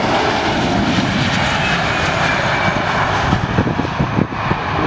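Jet noise from the Airbus A321XLR's twin CFM LEAP-1A turbofans: a loud, steady rush with an uneven, flickering low rumble beneath it.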